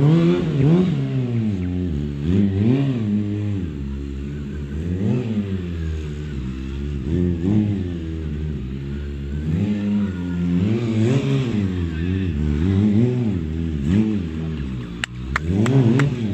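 Sport motorcycle engine revving up and falling back again and again, the throttle worked in blips while the bike is held up on one wheel in stunt wheelies. A few sharp clicks near the end.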